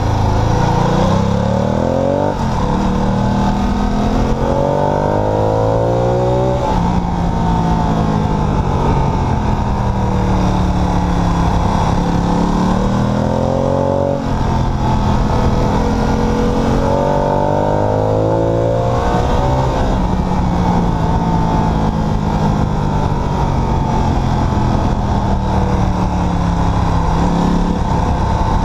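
Ducati Multistrada 1200 S's L-twin engine under way, the revs rising and falling through the bends. The pitch climbs and then drops abruptly several times as the rider shifts gears.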